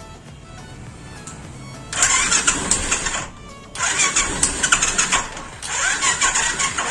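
Royal Enfield Classic 350 engine being cranked by its electric starter in three bursts of a second or so each, starting about two seconds in, without catching. The starter is working off a weak, run-down battery.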